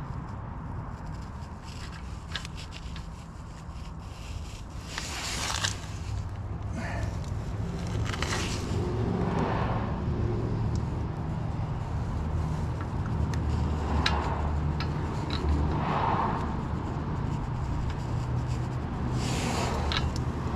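A steel thread-repair die scraping and clicking against the damaged threads on the end of a car's front axle as it is worked by hand to find the start of the thread, with several short scrapes over a steady low rumble.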